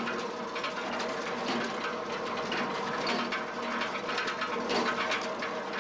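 Jean Tinguely kinetic machine sculpture running: metal parts turn, rattle and clatter in quick, irregular clicks and knocks over a steady hum.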